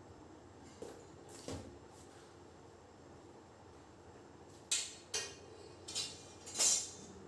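Plastic lid being fitted and pressed down onto a plastic jar to close it: a couple of light knocks, then four sharp plastic clacks in the last two seconds or so, the last one longer and scraping.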